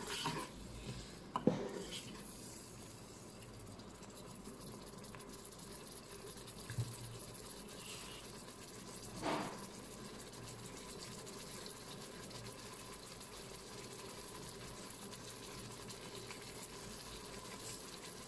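Tomato and chilli curry gravy simmering in a Noxxa electric cooker pot: a faint, steady bubbling. The stirring spoon gives a single knock about a second and a half in, and there is another short sound near the middle.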